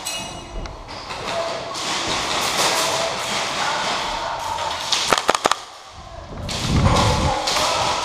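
An airsoft player moving across a concrete floor, with rustling and footfalls, a quick run of four or five sharp cracks about five seconds in, and a low thudding rumble near the end.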